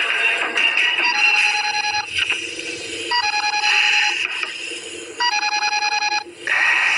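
Mobile phone ringing with a trilling electronic ringtone: three rings of about a second each, roughly two seconds apart.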